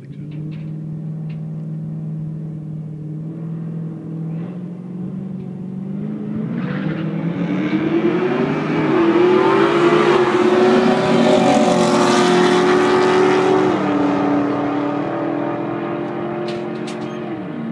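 Two bolt-on-modified muscle cars, a 1998 Pontiac Trans Am and a 2002 Chevrolet Camaro, drag racing. The engines run at a steady note at first, then rise in pitch and grow loud as the cars accelerate down the strip and pass, loudest about halfway through, with the pitch stepping down twice near the end.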